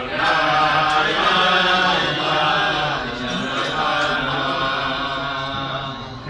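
A group of men singing a Hasidic niggun together.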